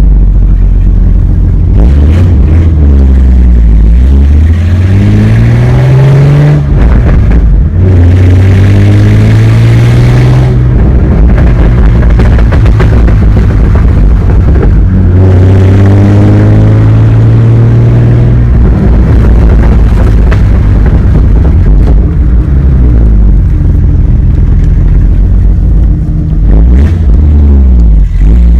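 A 2004 Ford Mustang's engine and exhaust being driven hard. The revs climb and drop several times as it accelerates and shifts, and short sharp crackles and pops come from the exhaust in between the pulls.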